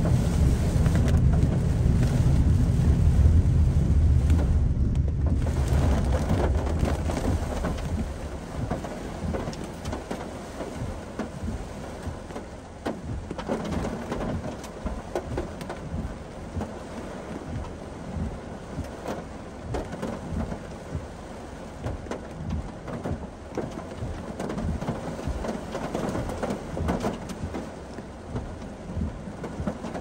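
Heavy typhoon rain pelting a car's roof and windscreen, heard from inside the cabin as a dense, irregular spatter. A deep rumble is loudest over the first six seconds or so and then eases.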